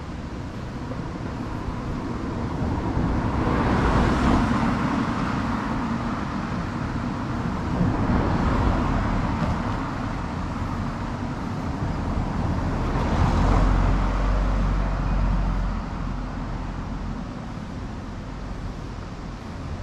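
Road traffic: cars driving past one after another, their noise swelling and fading three times, a few seconds apart, over a steady low rumble.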